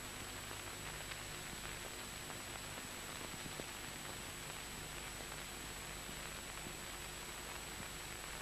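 Steady hiss and low hum of an old film soundtrack, with a faint steady high whistle and a couple of faint ticks; no sound of the work itself stands out.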